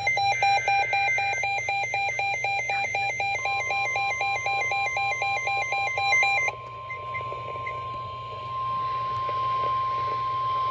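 Emergency alert tones from a weather radio broadcast, heralding a flash flood warning. For about the first six seconds a rapid, high-pitched electronic beep pulses. About three seconds in, a single steady tone near 1050 Hz starts and holds: the NOAA Weather Radio warning alarm tone.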